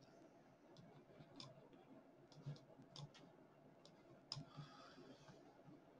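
Faint, irregular clicks from a computer keyboard, scattered over near-silent room tone.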